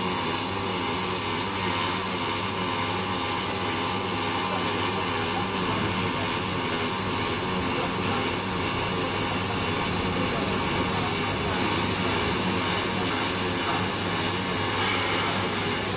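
Steady hiss and hum of a robotic MIG welding station at work, welding a steel fuel tank's oil port, with no clear break in the sound.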